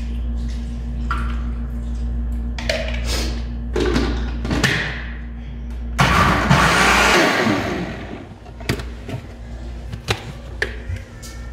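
Electric blender running in one short burst of about two seconds, grinding onion with a little water into a paste. Plastic clicks and knocks come before and after it as the jar is set on and handled.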